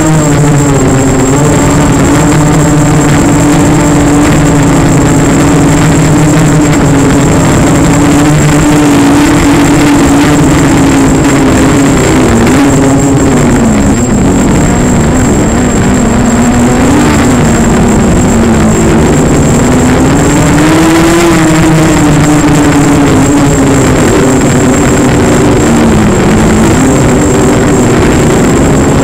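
Motor and propeller of a radio-controlled FPV aircraft, recorded by the camera on board, running loudly and without a break, its pitch rising and falling as the throttle changes. A thin, steady high whine runs alongside.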